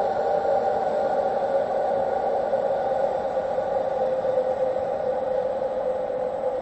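Eerie ambient sound-effect drone: several held tones over a hiss of noise, the strongest tone sinking slightly in pitch near the end.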